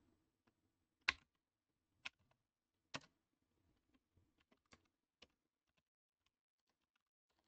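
Faint computer keyboard keystrokes: three louder key clicks about a second apart, then a run of lighter, scattered taps.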